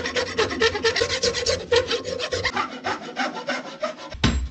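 Hand file scraping across a steel axe head clamped in a bench vise, in quick back-and-forth strokes, several a second, sharpening the bit. The filing stops near the end.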